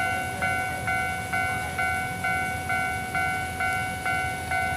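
Japanese railway level-crossing warning bell ringing at a steady pace of about two strikes a second, each strike a clear tone that fades until the next, over a low background rumble.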